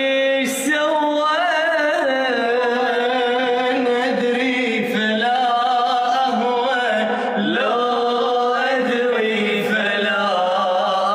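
A man singing in Arabic with a wavering, ornamented line that slides between notes, in long phrases with short breaks between them.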